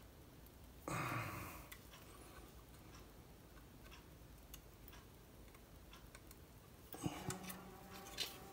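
Small plastic model-kit parts being handled and pressed together by hand: faint scattered clicks and taps, growing into a cluster of sharper clicks near the end as tiny pins are worked into the chassis. A brief rush of noise about a second in is the loudest sound.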